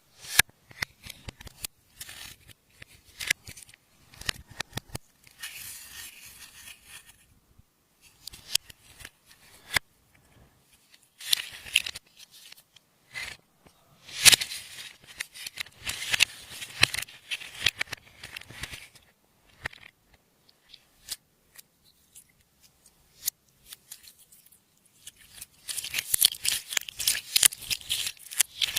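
Slime being worked by hand, pressed, stretched and folded, giving irregular sticky clicks and crackling pops in uneven spurts with short pauses between.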